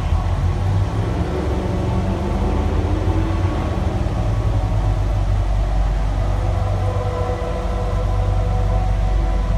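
Volcano show soundtrack through outdoor loudspeakers: a deep, steady rumble with sustained musical tones held over it.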